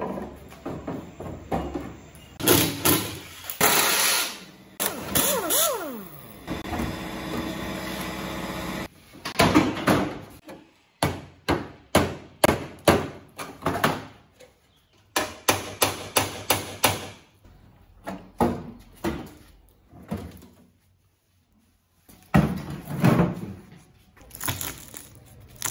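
Rusty steel car body parts being pulled off and handled: a run of sharp metal clanks, knocks and scrapes, with a short squeal and then a few seconds of steady whirring near the start of the run.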